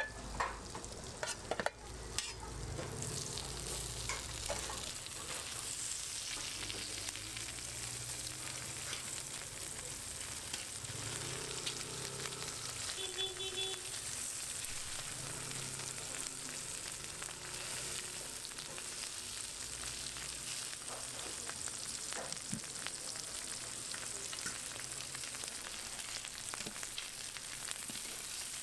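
Slices of ham frying in oil on a flat-top griddle: a steady sizzle with fine crackles, with a few knocks near the start.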